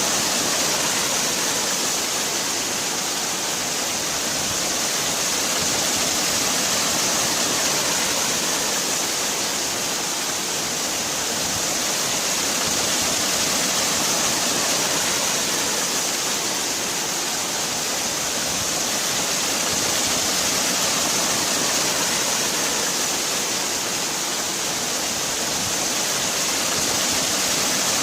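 Waterfall: falling water rushing steadily, with a gentle swell and fade in loudness every several seconds.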